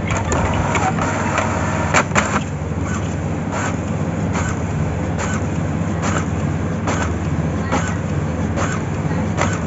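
HP 4515 inkjet printer's new print carriage shuttling along its rail, with a regular click a little under a second apart over a steady low hum. A couple of sharper clicks come about two seconds in.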